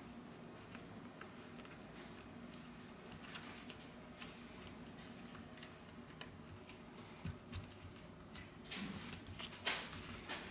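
Small plastic and metal phone parts being handled: a few faint, scattered clicks and scrapes as a plastic cover is fitted into a smartphone's metal frame, with a sharper click near the end as it seats.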